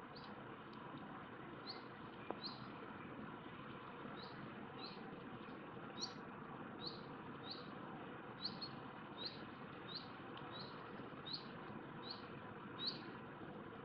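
A small bird repeating a short, high, downward-slurred chirp about one to two times a second, over a steady background hiss.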